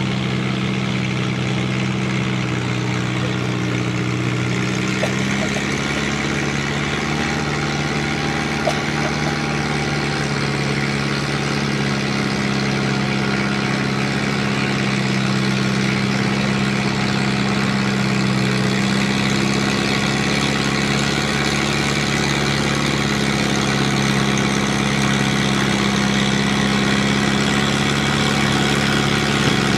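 Farmall Super M tractor engine running steadily under load while pulling a weight-transfer sled. Its note steps up slightly about five seconds in, then grows slowly louder as the tractor comes closer.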